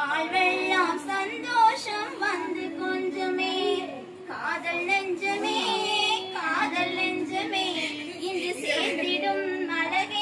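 Women's voices singing a song unaccompanied, with long held, wavering notes and a short break about four seconds in.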